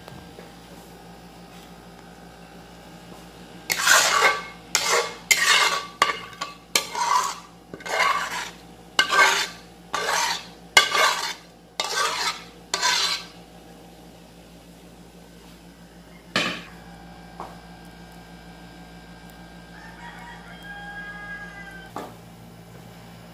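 A utensil scraping the last curry sauce out of a cooking pan into a dish: about ten quick, loud scrapes in a row, then one knock a few seconds later.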